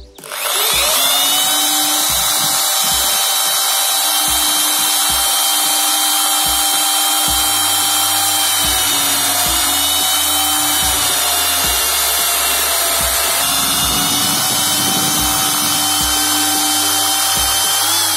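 Drill press starting up and running steadily with a high whine as its bit bores a hole into a block of wood, the pitch sagging a little twice under load, then starting to wind down at the very end.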